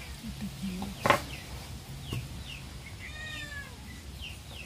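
A cat meows once, a drawn-out call about three seconds in, with a few short high chirps around it. A single sharp knock comes about a second in.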